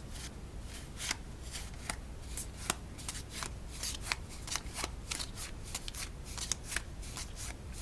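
Playing cards being handled and flipped one after another: a run of quick, sharp card clicks and snaps at an uneven pace.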